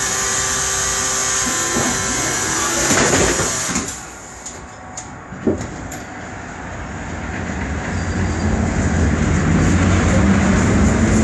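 Interior of a Ganz Ipari Csuklós articulated tram standing at a stop with a steady hum of several tones, then a few clicks and a sharp knock about halfway through. The tram then pulls away, and its motor and wheel rumble grows steadily louder as it gathers speed.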